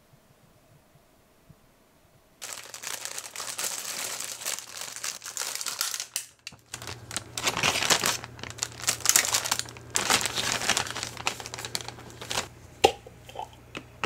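Thin plastic bag crinkling as a bagel is handled and pulled out of it, starting about two seconds in, with a brief pause near the middle. Near the end a single sharp knock, then a light clink.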